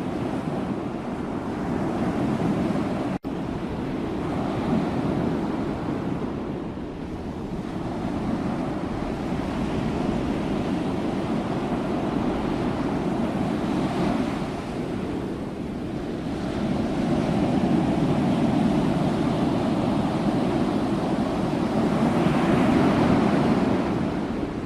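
Sea waves washing onto the shore in a continuous rush that swells and eases every few seconds. It cuts out for a split second about three seconds in.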